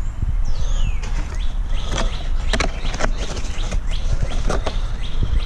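Scattered sharp clicks and knocks of handling over a steady low rumble of wind or distant traffic, with a bird's falling chirp about half a second in.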